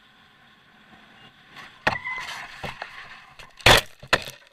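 Motorcycle crash heard from an onboard camera. A faint steady engine and road noise runs until, about two seconds in, a sharp impact starts a run of scraping and knocking as the bike and camera tumble. The two loudest hits come near the end, and then the sound cuts off abruptly.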